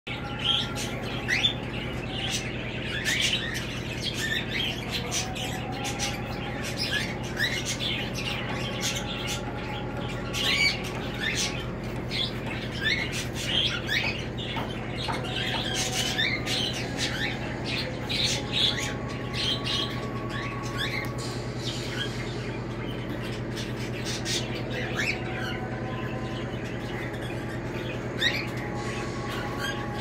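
Caged cockatiels chirping and squawking in many short, quick calls, thick for the first two-thirds and thinning out after, over a steady low hum.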